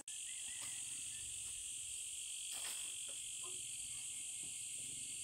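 Steady high-pitched chorus of insects, with a faint click about two and a half seconds in.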